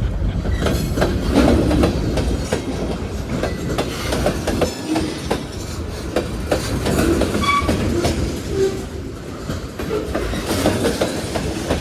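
Freight train cars rolling past with a steady rumble and the clickety-clack of wheels over rail joints. A brief high wheel squeal comes about seven and a half seconds in.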